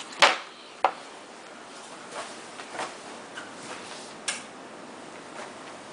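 A few short, sharp clicks, one about a quarter second in, another just under a second in and a third around four seconds in, with light knocks between them over faint room noise.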